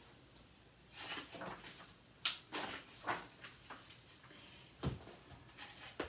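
Paper rustles and soft knocks from a picture book being handled and its pages turned, in a few short separate bursts.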